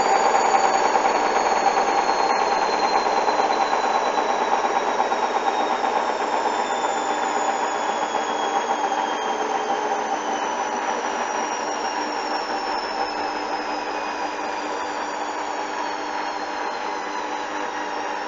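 Hoover washing machine slowing down from its 1400 rpm final spin: the motor whine falls slowly in pitch and the drum noise gradually fades.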